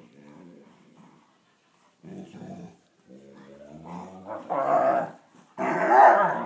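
Two Weimaraners play-growling as they wrestle: rough growls in several bouts with short gaps between them, getting louder toward the end. This is play, not a real fight.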